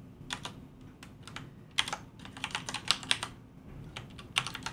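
Computer keyboard being typed on: single keystrokes and short irregular runs of clicks.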